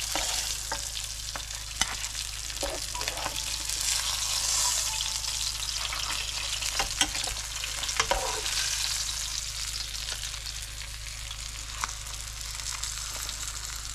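Pieces of fish frying in oil in a frying pan, a steady sizzling hiss, with a few sharp clicks and knocks of a utensil against the pan as the pieces are moved.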